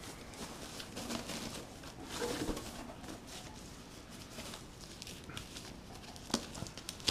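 Plastic wrapping bag rustling and crinkling as a boxed unit is handled and lifted from its cardboard box, with a sharp click about six seconds in.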